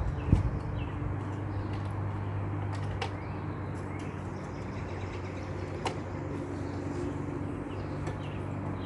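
A low knock and a few light clicks of an e-bike battery pack being seated and locked into its rear rack mount, over a steady low hum.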